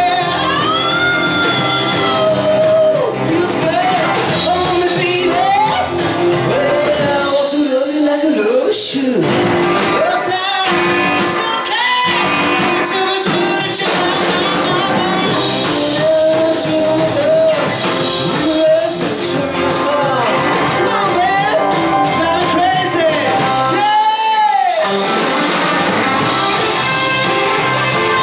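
Live rock and roll band playing, with a male lead singer over electric bass, keyboards, drums and guitar, heard in a reverberant club room.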